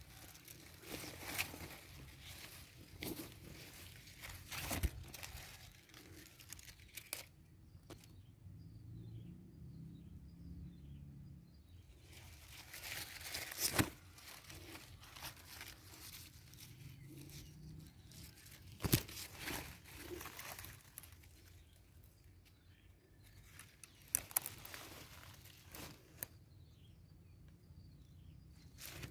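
Leaves and vines rustling and crackling as a hand pushes through dense leafy vines, with scattered sharp snaps and handling knocks. In the quieter gaps, faint high chirps repeat several times.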